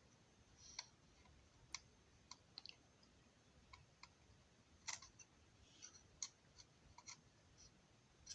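Faint, irregular light clicks and taps, a dozen or more scattered through otherwise near silence, as the small model diner building is handled.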